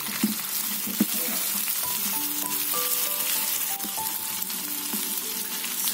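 Chopped onion, carrot and capsicum sizzling in hot oil in a wok as they are stir-fried, with a steady frying hiss. Soft background music notes come in about two seconds in.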